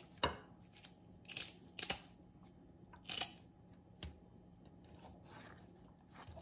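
Kitchen shears snipping through the fins and tails of red snapper: a handful of short, crisp snips, unevenly spaced.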